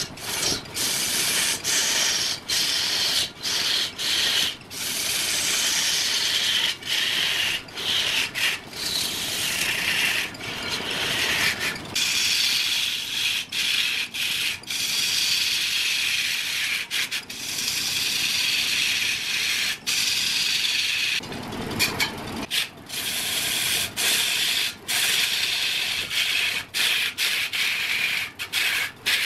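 A long-handled turning tool scraping and cutting a large log spinning on a wood lathe: a loud, continuous hissing scrape as shavings peel off, broken by frequent brief gaps.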